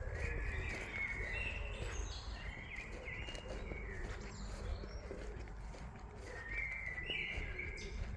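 Small birds chirping: short bursts of high chirps come in three bouts, with fainter lower calls between them, over a steady low background rumble.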